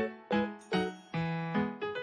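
Background music: piano or electric-piano notes played in a bright, bouncing melody, several notes a second.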